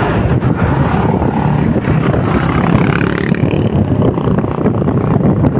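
Motorcycle being ridden along a road: steady engine and road noise, heard from a camera strapped to the rider's chest.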